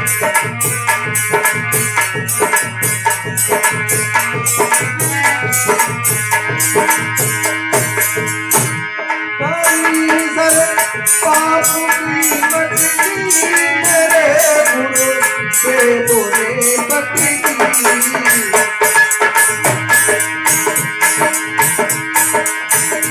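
Instrumental passage of Indian folk-devotional music: dholak drumming with a fast, even jingling beat over it and a melody instrument playing. The deep drum strokes drop out about nine seconds in while the melody carries on, and come back near the end.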